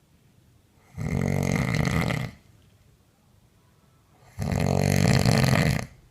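A woman snoring loudly in her sleep: two long snores, each about a second and a half, three seconds apart.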